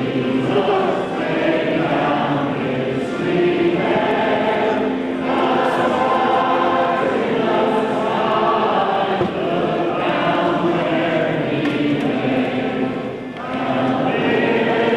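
A choir singing, many voices together holding long notes, with a brief dip between phrases near the end.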